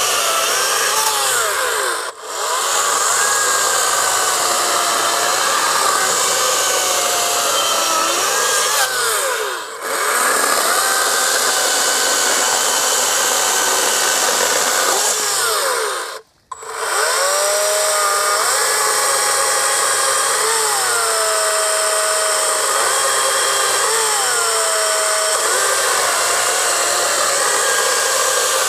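Harbor Freight Atlas 40V 16-inch brushless battery chainsaw running and cutting through small logs. Its motor pitch dips and recovers as the chain goes into and out of the wood, winding up under the load of the cut. The saw eases off briefly about 2 and 10 seconds in, and stops for a moment about 16 seconds in before starting again.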